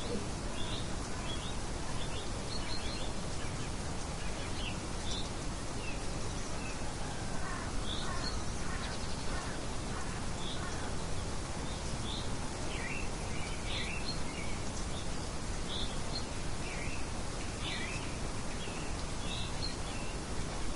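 Many short bird chirps scattered throughout over a steady, even wind-like hiss.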